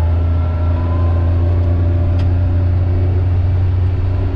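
Kawasaki Mule Pro FXR side-by-side's three-cylinder engine running loud and steady as it drives along a gravel trail. It has a strong low hum and a few steady higher tones that rise slightly in the first second.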